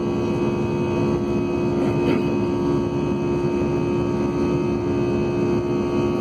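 Steady drone of an airliner's jet engines heard from inside the passenger cabin, a constant noise with a hum of steady tones.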